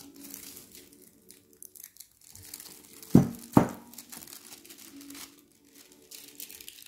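Tissue paper crinkling and rustling as it is unwrapped from around a watch box, with two loud thumps about half a second apart a little past the middle.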